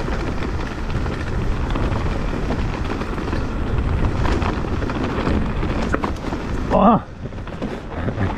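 Mountain bike riding down a trail: wind buffeting the microphone and rumbling tyre and trail noise. About seven seconds in comes a short shout, and the riding noise drops off sharply.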